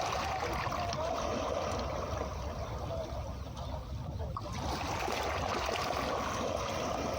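Calm sea waves washing steadily onto a beach.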